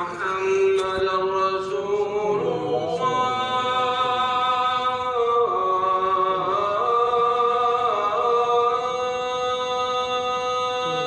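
A muezzin's adhan (Islamic call to prayer): one man's voice drawing out a single long, ornamented phrase, holding each note and sliding between pitches a few times.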